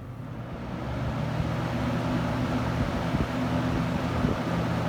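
A 1974 Lakewood Model P-223 20-inch box fan with a Marco motor running on its high setting. It grows louder over about the first second as it comes up to speed, then runs steadily, a motor hum under the rush of air from the blade. Its high speed sounds normal.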